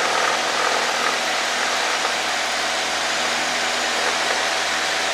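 Cessna's engine and propeller running steadily at full power during the takeoff roll, heard inside the cockpit.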